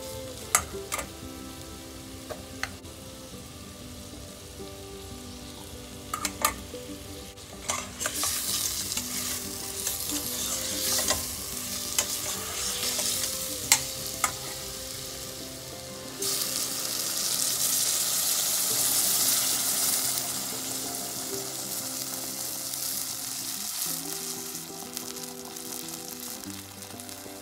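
Chicken pieces frying in fat in a metal pot, turned with a spatula: a steady sizzle with sharp clicks and scrapes of the spatula against the pot. The sizzle grows louder partway through, rises abruptly about two-thirds of the way in, then slowly fades.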